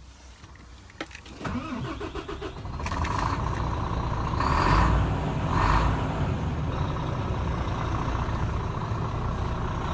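Renault Premium 460 DXI truck's 11-litre six-cylinder diesel engine being started: a click about a second in, the engine turning over and catching, two brief revs around the middle, then a steady idle.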